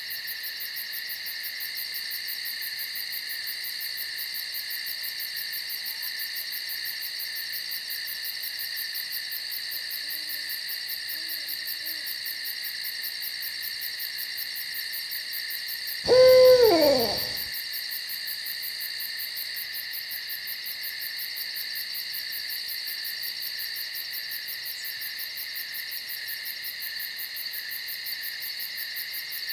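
Steady night insect chorus, a high chirring with a fast pulse, and about halfway through a single loud owl call lasting about a second and a half and falling in pitch. Fainter low calls sound a few seconds before it.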